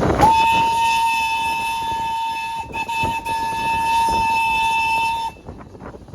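Train horn sounding one long, steady blast on a single held note, with a brief dip about halfway through, then cutting off about five seconds in.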